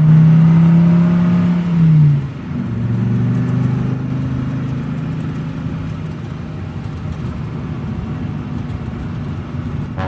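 Small pickup truck's engine: a loud steady engine note that drops away about two seconds in, then the engine running steadily as the truck drives up.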